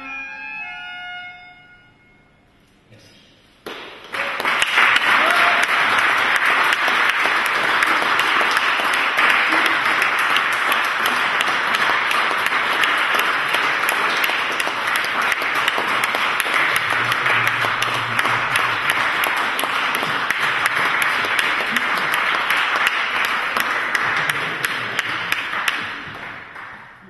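The last notes of the accompanying music fade out, then about four seconds in an audience breaks into steady applause that runs for some twenty seconds before dying away near the end.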